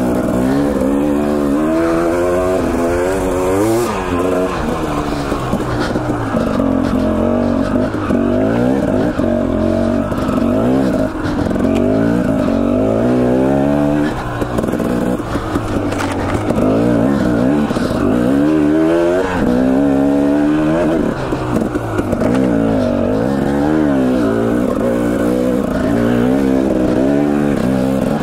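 Husqvarna TE 250 two-stroke dirt bike engine under way, its revs climbing and dropping over and over with throttle and gear changes.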